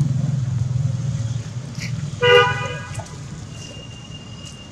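A motor vehicle's engine rumbling and fading away as it passes, then a short horn toot a little over two seconds in.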